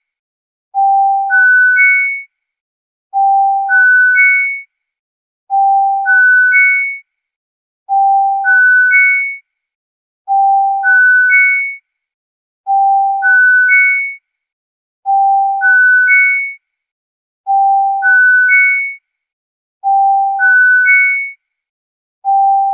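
Dominex EAS alarm tone: three pure electronic beeps stepping up in pitch, low, middle, high, played back to back and repeated about every two and a half seconds, some ten times over.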